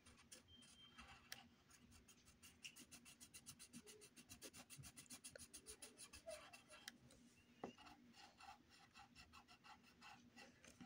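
Coloured pencil scribbling on paper in quick back-and-forth strokes, several a second, faint and scratchy, slowing a little in the second half.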